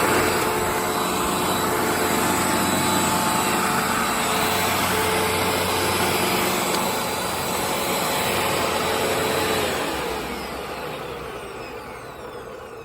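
Hoover Rewind Plus multi-stage cyclonic upright vacuum cleaner running steadily, then switched off about ten seconds in, its motor whine falling in pitch and fading as it spins down.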